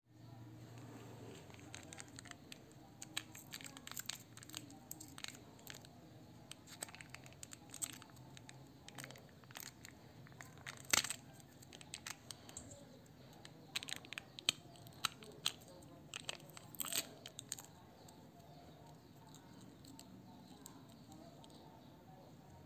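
Foil lid of a small snack cup being peeled open by hand: crinkling and tearing with scattered sharp crackles, the loudest about eleven seconds in and a cluster a few seconds later.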